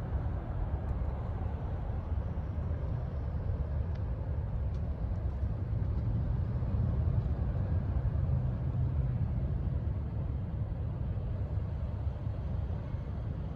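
Jet engines of a Boeing 747 Dreamlifter under takeoff power after departure: a steady low rumble that swells a little about seven seconds in, then eases off.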